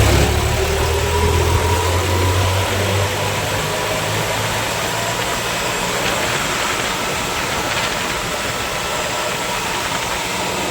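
New Holland 3630 tractor's diesel engine running under way on the road, with a faint whine rising in pitch over the first few seconds and a steady rush of road and wind noise. The low engine note is strongest for the first few seconds and then eases.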